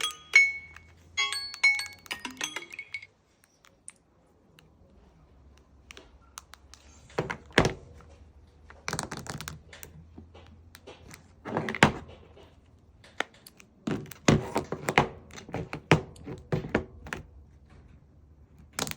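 A smartphone alarm tone, a bright mallet-like chime of repeated notes, stops about three seconds in. After a short lull comes a scattered series of dull knocks and taps, irregular and spread over the rest.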